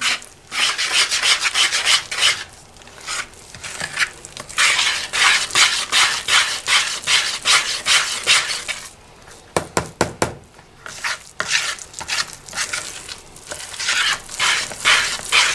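A wire whisk stirring and scraping through thick, floury dough in a large bowl, in quick repeated scratchy strokes. A few louder knocks come about ten seconds in.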